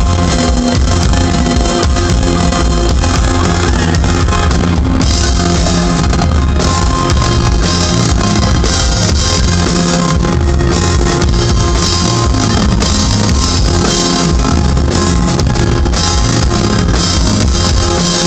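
Live rock band playing: electric guitar, drum kit and keyboards, loud and continuous.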